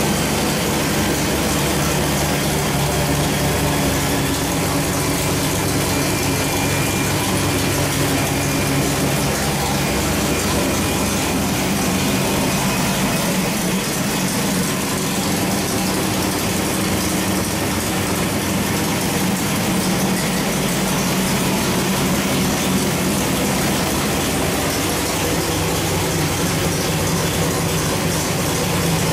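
Carbureted 383 stroker small-block Chevy V8 running on an engine dyno, idling steadily at an even speed with no revving.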